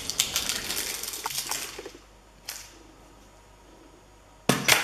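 Crinkling and clicking of a pink plastic toy capsule and its wrapping being worked open by hand. The sound goes quiet about two seconds in, with one click, then a sharp snap near the end as the capsule comes open.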